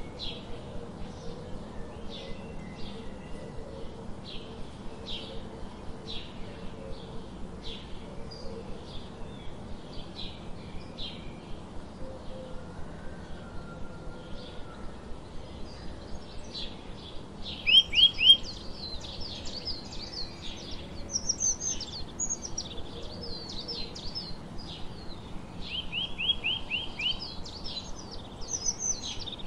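Sparrows chirping, short chirps repeated steadily throughout, with louder quick runs of chirps about 18 seconds in and again near 26 seconds.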